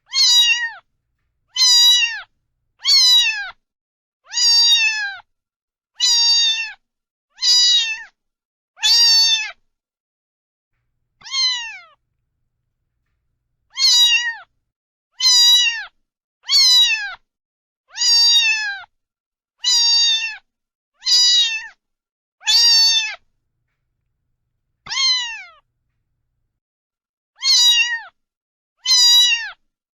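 A cat meowing over and over, about eighteen short meows, each dropping in pitch, mostly one every second and a half, with a couple of longer pauses between runs.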